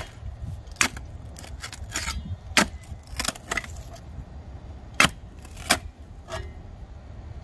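Clamshell post-hole digger's steel blades jabbing into the ground, about ten sharp metallic clinks and knocks at uneven intervals. The blades are striking old concrete packed around the previous mailbox post.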